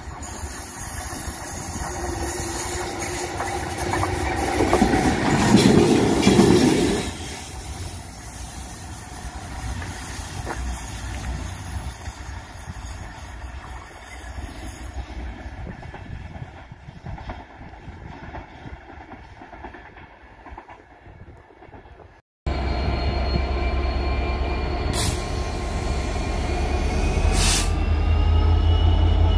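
A diesel locomotive passes through the station, loudest about five seconds in, then fades into the distance. After a cut, a Freightliner Class 66 diesel locomotive, with its two-stroke EMD engine, runs slowly past close by: a steady low engine drone, a faint whine that rises in pitch, and two sharp clanks.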